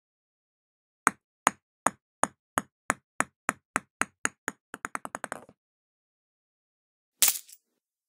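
A dropped hard object bouncing on a hard surface: sharp knocks that come quicker and quicker until they run together and stop, then one louder impact with a short rattling tail about seven seconds in.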